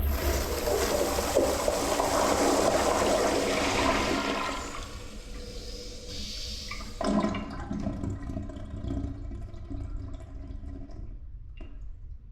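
Toilet flushing: a loud rush of water swirling down the bowl for the first four or five seconds, then quieter running water with a brief surge about seven seconds in, dying away about eleven seconds in. A short click near the end.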